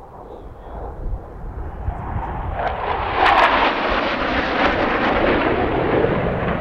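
Jet aircraft passing overhead, its engine noise swelling from about a second in and staying loud from about three seconds on.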